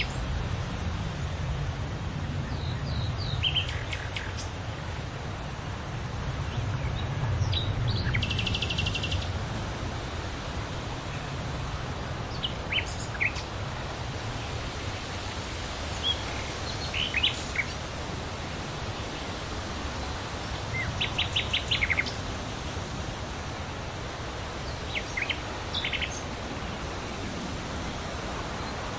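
Outdoor ambience of wild birds calling: scattered short chirps and whistles, with two rapid trills, about eight seconds in and again near twenty-one seconds, over a steady low rumble.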